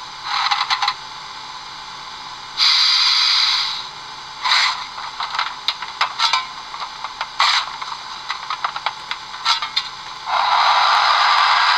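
Steam locomotive sound effects played through the small speaker of an HO scale PLM 141 model's ESU sound decoder. First comes a brief steam hiss, then the coal shovel effect: scattered scrapes and clatters of the shovel. About ten seconds in, a steady loud hiss of the injector begins.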